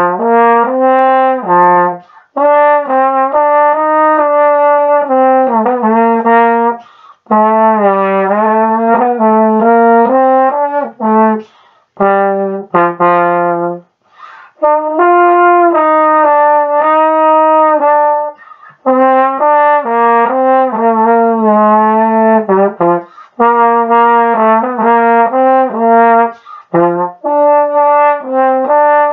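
Tenor trombone with an F trigger playing a Christmas melody solo: phrases of held and moving notes, broken every few seconds by short pauses for breath.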